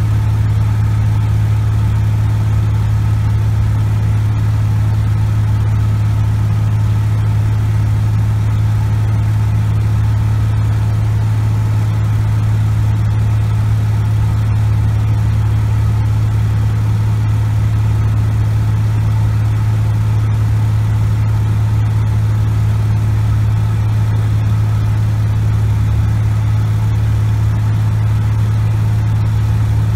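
Cessna 180 Skywagon's six-cylinder engine and propeller running steadily in flight, heard from inside the cockpit as an even, low drone that stays at one pitch and loudness.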